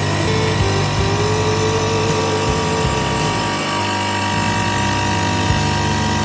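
CNC stone router's spindle milling a stone slab under water coolant spray: a steady machine running sound with a mid-pitched tone that wavers slightly.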